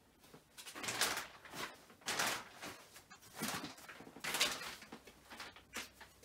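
A row of short rustling, scuffing noises, several in a row at uneven gaps of about a second, as a heavy plastic-wrapped mattress is handled.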